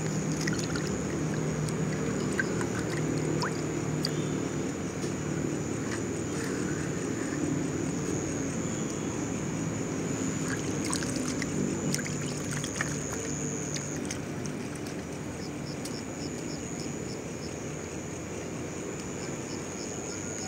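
Steady low motor-like hum under a constant high, thin insect drone of night insects, with a few faint clicks.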